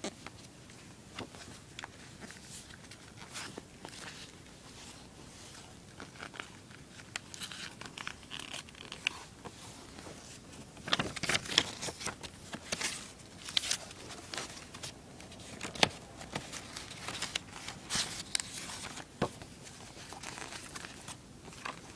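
Paper booklets and a cardboard phone box being handled by hand: rustling, crinkling and light taps. The rustling grows denser and louder about a third of the way in, with several sharp crackles.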